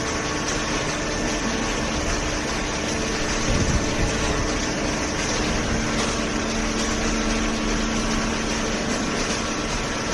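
Horizontal hydraulic baler running, its pump and motor giving a steady hum over machine noise. A second, lower tone comes in about halfway and holds for a few seconds.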